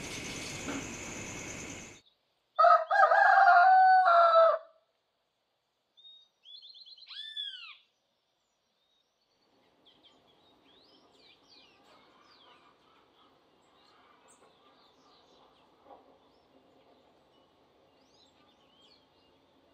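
A rooster crows once, loud, about three seconds in. A short bird call of arched whistles follows, then faint birdsong chirps over a low steady hush.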